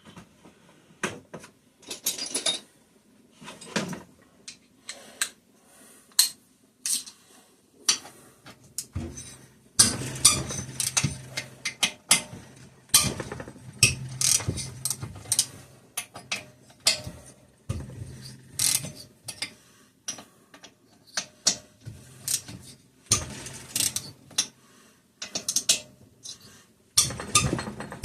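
Hand ratchet wrench clicking in runs of quick strokes as cylinder head bolts are turned out.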